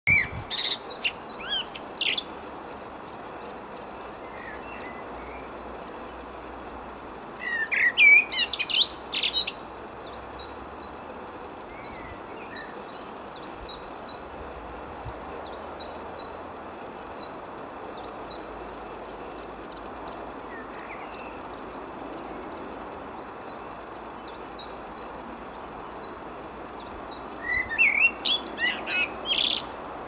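Male common blackbird singing: three bursts of rich, warbling song, near the start, around eight seconds in and near the end, over a steady rush of wind noise.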